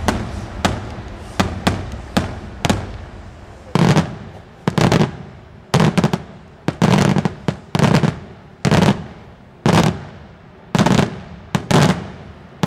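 Daytime aerial fireworks: a rapid, irregular string of loud shell bursts, about two a second, often in quick pairs or clusters. Each bang trails off in an echo.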